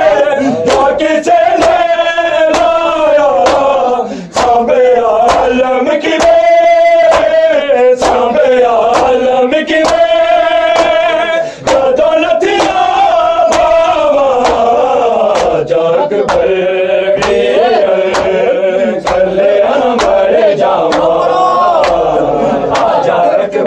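A male reciter chanting a nauha lament with the congregation singing along, over a steady beat of hand strikes on the chest (matam) in unison, a little under two strikes a second.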